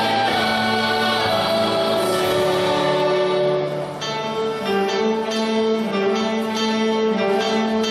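Live ensemble music with long held notes; from about four seconds in, a quick run of short plucked notes plays over the sustained tones.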